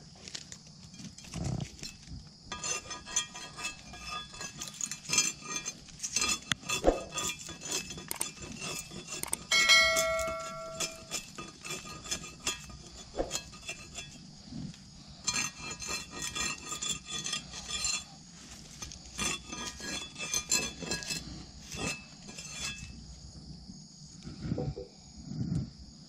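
Machete chopping and hacking at spiny salak palm stems: many sharp, irregular cuts and clinks, over a steady high-pitched background drone. A short pitched tone sounds about ten seconds in.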